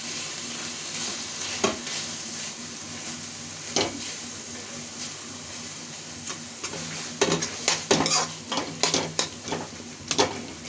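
Boiled vegetables and masala sizzling in oil in a metal kadhai while a metal spoon mashes and stirs them: a steady frying hiss, two knocks of the spoon in the first four seconds, then from about seven seconds in quick repeated scraping and tapping of the spoon against the pan.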